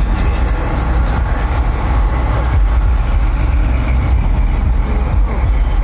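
Cars driving past with a loud, steady low rumble.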